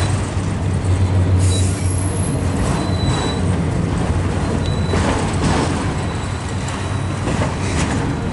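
Loaded autorack freight cars rolling past on the rails, a steady low rumble with faint, brief high wheel squeals now and then.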